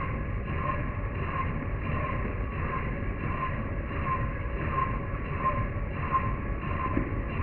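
Milling machine fly-cutting a steel plate with a carbide-insert fly cutter: steady machine running with a cutting sound that pulses about one and a half times a second.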